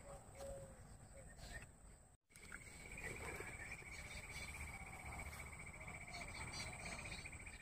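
An insect trills steadily in a fast, even pulse, starting just after a brief silent gap about two seconds in. Before the gap there are only a few faint low calls over field noise.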